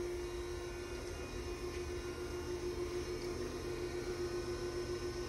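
Steady hum with a low rumble underneath from a powered-up 1988 Okamoto DX1632 surface grinder.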